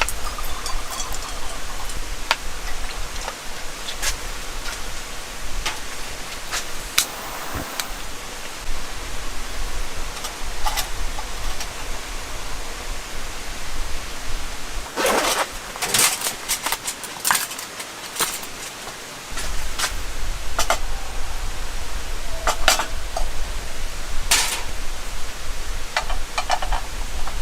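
Steady rain hiss with many sharp, irregular taps of single drops landing on a hard surface, most of them close together about halfway through.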